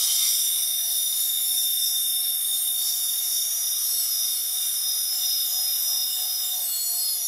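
Small cordless electric screwdriver running steadily with a high whine, backing a long screw out of an RC crawler's plastic axle housing, then cutting off.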